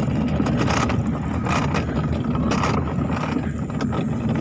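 Gravity luge cart rolling downhill on an asphalt track, its wheels making a steady low rumble with a few short rattles.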